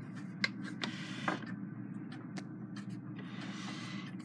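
A few light clicks and a brief rustle of handling over a steady low hum.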